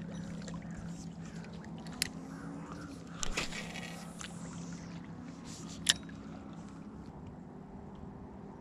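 Spinning reel being cranked slowly to retrieve a Ned rig, a soft steady whir that stops about seven seconds in, with three light clicks along the way.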